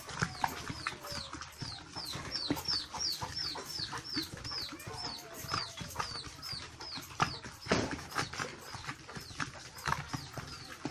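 Stone grinder (aattukal) grinding wet masala paste of coconut, turmeric, cumin and pepper, the stone roller knocking and scraping in the mortar with scattered clicks, one louder knock near the middle. A quick series of high chirps, each falling slightly, at about three a second, runs through the first half and fades out.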